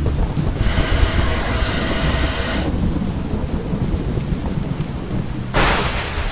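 Thunder rumbling steadily through rain. A louder, ringing layer comes in for about two seconds near the start, and a short sharp crack sounds near the end.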